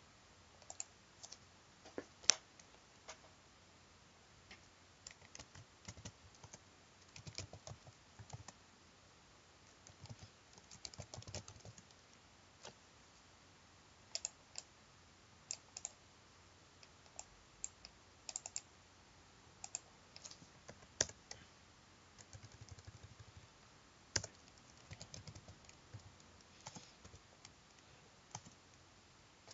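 Faint computer keyboard typing: irregular keystrokes in short runs with pauses between.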